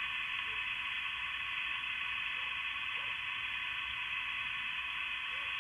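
Receive static (band noise) from an Icom IC-7100 HF transceiver's speaker, a steady hiss, while a Tarheel screwdriver antenna is run toward resonance. The static is the tuning cue: the more resonant the antenna, the more white noise or static is heard.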